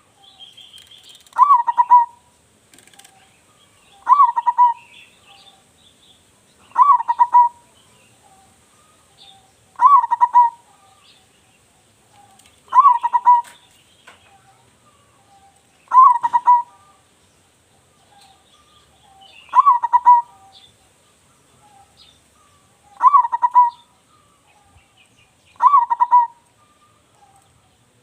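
Zebra dove (perkutut) singing, a short stuttering cooing phrase repeated about every three seconds, nine times over. Faint high chirps of other small birds fill the gaps between phrases.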